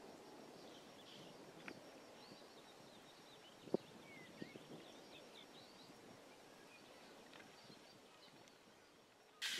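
Faint outdoor ambience of distant small birds singing, thin chirps and short whistles over a low hiss, with a soft tap about halfway through. Just before the end a loud chorus of calling terns cuts in suddenly.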